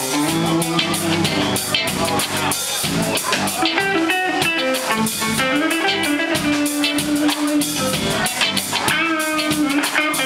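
Live band playing a tune on two electric guitars, bass guitar and drum kit, with sustained, bending guitar notes over a steady beat.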